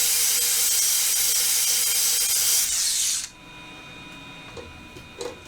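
DeWalt 60 V cordless angle grinder with a 60-grit flap disc grinding a beveled edge onto the motor mount. The grinding is loud and steady, then stops abruptly about three seconds in.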